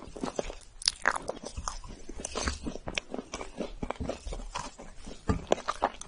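Chocolate shavings on a chocolate cake crunching and crackling in quick, irregular, close-miked clicks, louder in spots about a second in and again near the end.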